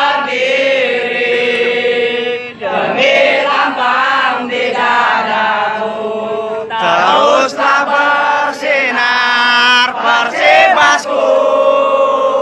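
Football supporters chanting together, many male voices singing long held notes in unison, with a few sharp hits between the phrases in the second half.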